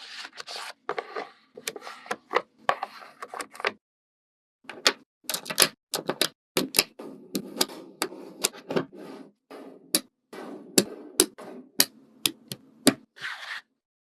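Hands handling small DIY craft materials: a quick, irregular run of sharp clicks and taps with crinkling between them, breaking off for about a second around four seconds in.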